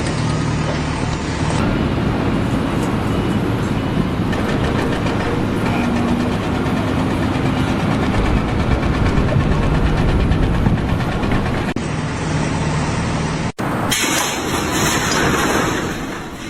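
A heavy engine running loudly and steadily, cut off abruptly about three-quarters of the way through and followed by a different, hissier noise.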